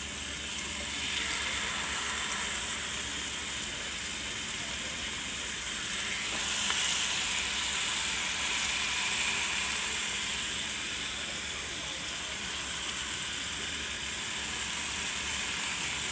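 Marinated chicken legs sizzling in hot butter in a frying pan: a steady hiss that swells about six seconds in, as more pieces are laid into the pan.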